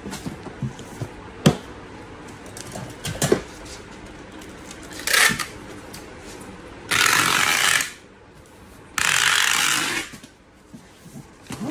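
Packing tape being pulled off a handheld tape dispenser gun onto a cardboard carton: a short pull, then two loud pulls of about a second each. Before them come a few knocks of cardboard flaps being handled.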